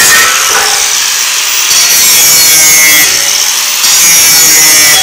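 Angle grinder with a cut-off wheel cutting through an aluminium loading ramp, a loud high grinding whine. It eases off twice for about a second, about half a second in and again about three seconds in, then bites back in.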